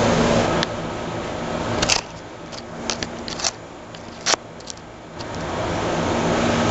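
Electric motor and gear drive of an Axial-based radio-controlled rock crawler whining as it crawls over rocks. The whine is strong at first, eases off about two seconds in, leaving a few sharp clicks and knocks, then builds back up near the end.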